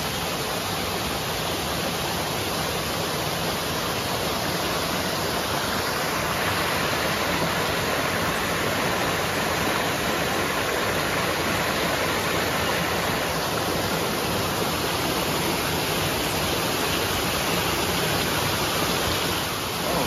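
Small creek waterfall cascading over a rock slab: a steady, even rush of water, a little louder from about six seconds in.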